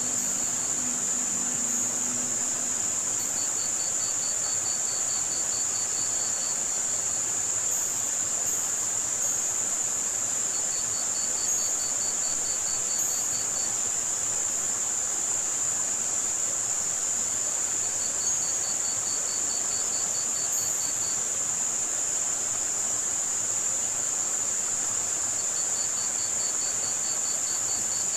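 Layered tinnitus-masking soundscape: a steady high-pitched band of filtered white noise over an even wash of running-water hiss. Crickets trill in bursts of rapid pulses, each about three seconds long, roughly every seven seconds.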